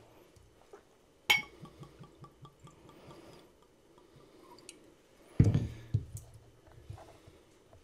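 Whiskey poured from a glass bottle into Glencairn glasses: a sharp knock of glass about a second in, then the liquid glugging out in quick pulses. A louder knock about five and a half seconds in is followed by more glugging.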